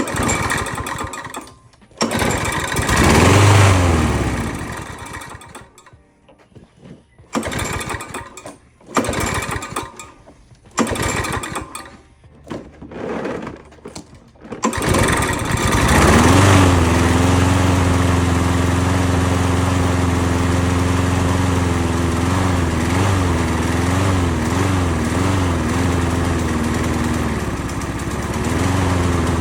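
Small lawn mower engine being pull-started on a freshly cleaned carburetor and fresh gas. A series of short pulls, one brief firing about three seconds in that dies away, more pulls, then about fifteen seconds in it catches and runs steadily, wavering in speed for a moment midway through.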